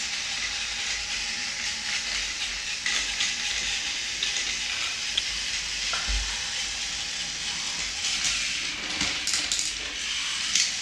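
Steady hiss, with a few faint clicks near the end.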